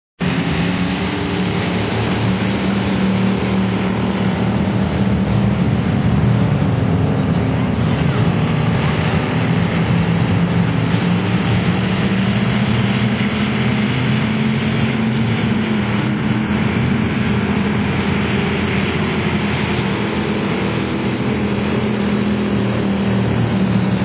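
A pack of dirt-track stock cars racing, many engines running together in a loud, steady din.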